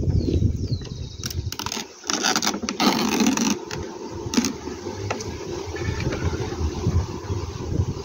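Bee smoker puffing into a nucleus hive and its cloth cover being pulled back: several short hissing and rustling bursts in the first half, over a steady low rumble.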